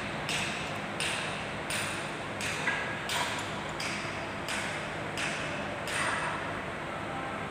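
Repeated rasping strokes, about three every two seconds, like hand-filing or sawing, with a brief metallic ping about three seconds in.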